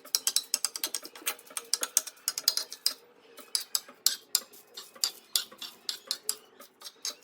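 Dry-roasted kala bansa (vasaka) leaves being crushed and turned on a hot tawa: a dense run of irregular crisp clicks and crackles, several a second.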